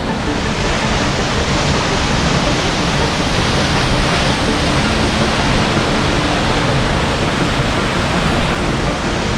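Steady rush of falling water from a waterfall, an even noise without breaks.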